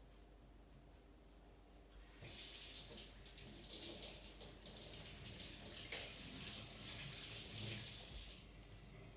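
Water running from a tap, starting about two seconds in and shutting off near the end, about six seconds of steady splashing.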